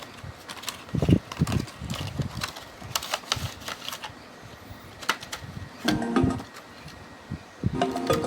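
Small cardboard and plastic packaging being opened and handled: a run of quick clicks, taps and rustles with a few dull knocks. Music comes in near the end.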